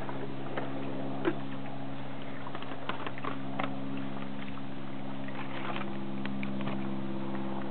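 A steady low mechanical hum holding several pitches, with a few faint clicks and taps as a plastic screw cap is fastened onto a water bottle.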